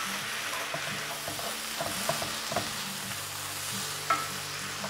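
Cubed yellow squash and onion sizzling in butter in a cast iron skillet, stirred with a wooden spoon that knocks and scrapes against the pan a few times. The squash is being fried to cook its moisture out.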